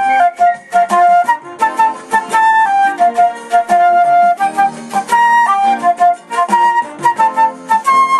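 Background music: a flute playing a melody of held and moving notes over a lower accompaniment.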